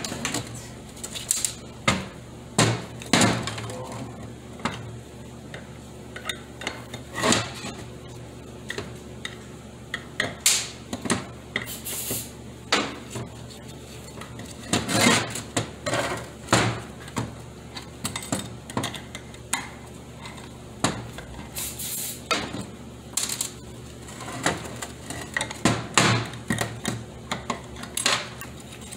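Metal parts of a 4T40E automatic transmission's aluminum valve body clinking and knocking as it is taken apart by hand, in irregular sharp clanks and rattles.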